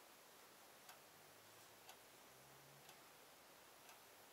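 Near silence: room tone with a faint, regular tick about once a second.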